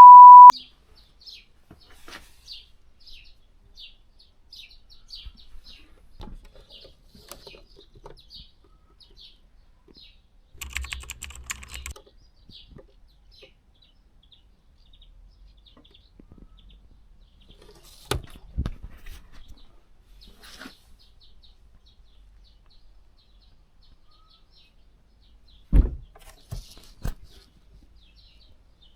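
A short, loud, steady beep at the very start. Then faint bird chirps repeat a couple of times a second, with a brief rustle and a few scattered knocks later on.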